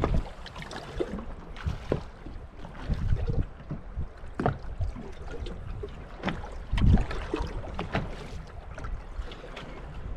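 Small waves slapping and knocking against the hull of a bass boat, with wind on the microphone: irregular low thumps over a steady rush, the loudest about two-thirds of the way through.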